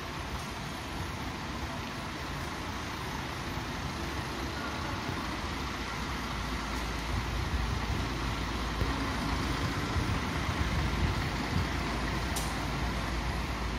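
Articulated city bus idling at a stop amid steady traffic noise, its low engine rumble growing louder from about halfway in. There is a brief sharp sound near the end.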